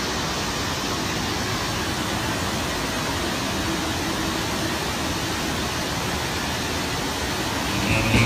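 Steady rush of water pumped over the slope of an indoor surf-simulator standing-wave ride: a constant, even roar of flowing water.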